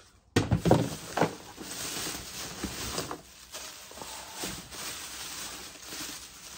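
Rummaging and handling noise: items being shifted and rustled in a box or bag, with a few loud knocks in the first second and softer knocks after.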